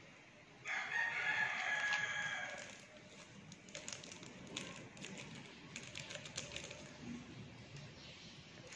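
A rooster crows once, a pitched call of about two seconds starting just under a second in. Afterwards a small plastic sachet crinkles and clicks in the hand.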